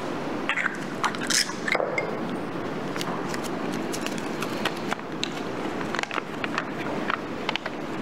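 Scattered small clicks and crinkly rustling of lots being handled and drawn out of a draw pot, over a steady background room noise.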